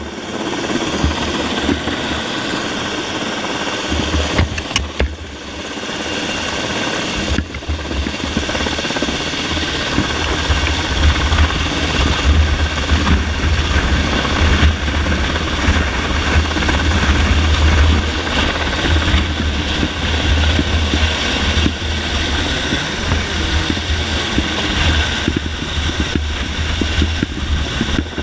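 UH-60 Black Hawk helicopter hovering low overhead: loud, steady rotor and turbine noise, with the rotor downwash buffeting the microphone as a heavy rumble from about four seconds in.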